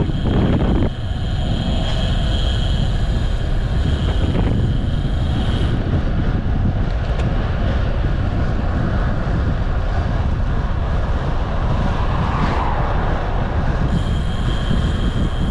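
Steady wind rumble on the microphone and road noise from riding, with a thin high whine that comes and goes and a brief swell about twelve seconds in.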